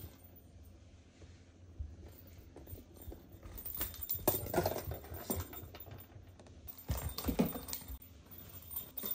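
Kitten batting a small plastic toy ball across tatami and a wooden floor: irregular light knocks and rattles with scampering paws, busiest about four seconds in and again around seven seconds.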